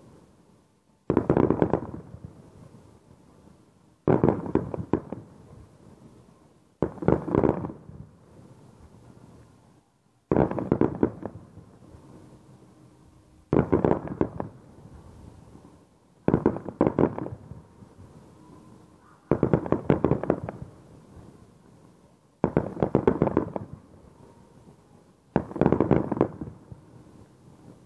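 Aerial firework shells bursting about every three seconds, nine in all. Each is a sharp bang followed by a spray of crackles that fades over a second or two.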